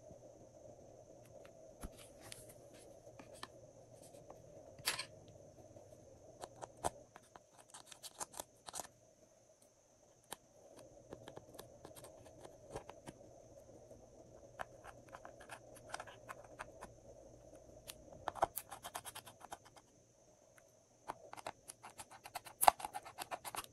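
Thin metal spatula scraping and digging pressed eyeshadow out of the pans of a plastic palette: scattered scratches and small clicks, in quick clusters a few times.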